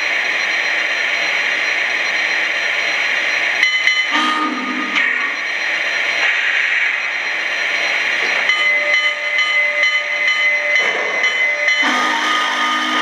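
Lionel Vision GS-4 model steam locomotive's onboard sound system playing a steady steam hiss while the engine stands still. Short pitched tones come and go over it: about four seconds in, again from about eight and a half to eleven seconds, and near the end.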